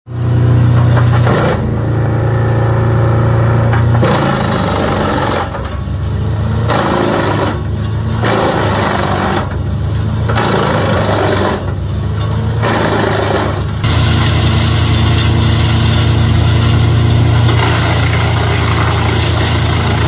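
Timberwolf TW 280HB diesel-hybrid 8-inch woodchipper running under load: a steady low engine drone, with the loud grinding of branches being chipped breaking off and coming back several times.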